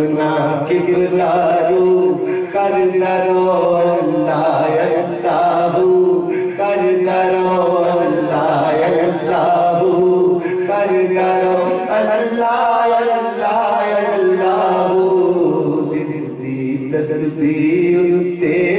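A man sings devotional verse unaccompanied into a microphone in long, ornamented phrases that bend up and down. A steady low tone holds underneath throughout, and the voice dips briefly about sixteen seconds in.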